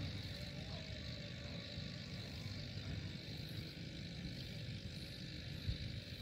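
Steady outdoor background noise: a low rumble with a fainter high hiss, and a short soft thump near the end.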